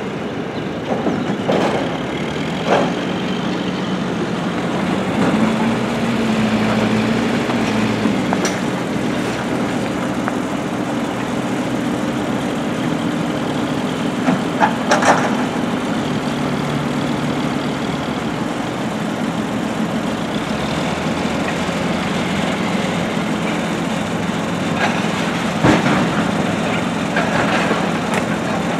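Diesel engines of heavy construction machinery running steadily, their speed shifting now and then, with several sharp metallic clanks, a cluster of them about halfway through.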